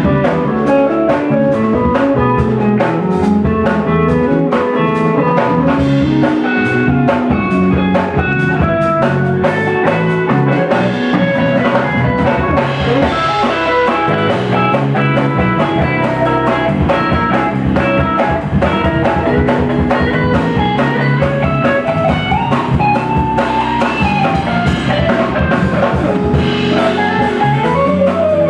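Live band playing: electric guitar, bass guitar and drum kit, with keyboard, over a steady drum beat.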